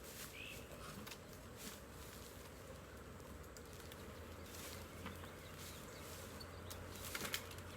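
Faint, steady hum of a honeybee swarm, with scattered rustling and a few sharper knocks near the end.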